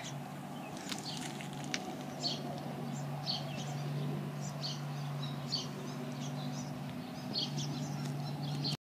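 Small birds chirping, many short high chirps scattered throughout, over a steady low hum; the sound cuts off suddenly near the end.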